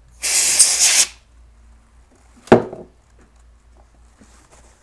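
A short rush of air blown into a computer trackball to clear dirt from it, lasting about a second. About two and a half seconds in comes a single sharp knock, the loudest sound.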